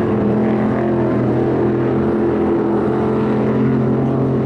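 Quarter midget race car engines, small single-cylinder four-strokes, running at a steady low speed with a constant drone.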